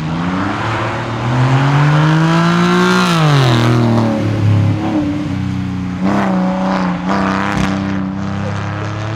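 Hillclimb competition car's engine accelerating hard: the pitch climbs for about three seconds, drops sharply at a gear change, then holds at steadier revs with two short sharp cracks about six and seven seconds in.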